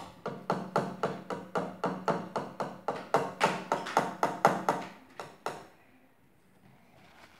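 A rapid, even run of sharp taps, about four a second, stopping about five and a half seconds in.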